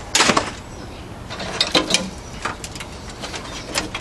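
Wires and plastic cable connectors being pulled and handled inside a computer tower's sheet-metal case: a burst of clattering clicks just after the start, then scattered single clicks and rustles.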